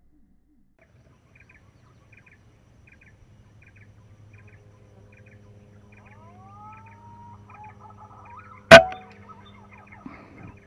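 Birds calling, with a short double chirp repeating about twice a second and some whistled glides. About nine seconds in comes the single sharp crack of an air-rifle shot at a perched green pigeon, followed about a second later by a smaller knock.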